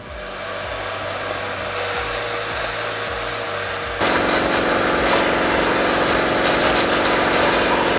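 A shop vacuum whines steadily as it sucks valve cleaner and loosened carbon out of an engine intake port. About four seconds in it gives way to a louder, steady hiss from a compressed-air media blaster shooting baking soda at the intake valves to blast off the remaining carbon.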